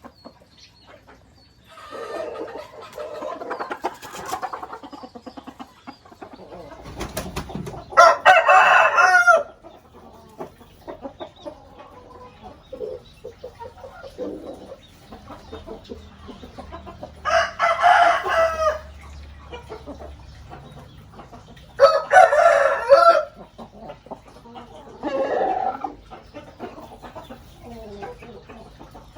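Rooster crowing three times, each crow about a second and a half long, with softer clucking and calls from chickens in between.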